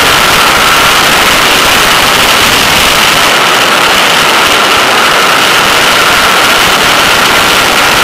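Porsche 911 flat-six running hard at track speed, its steady high note buried in loud wind rush over an externally mounted microphone.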